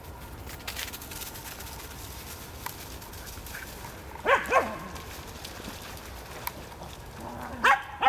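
Karelo-Finnish Laika barking: two quick barks about four seconds in, then another pair near the end.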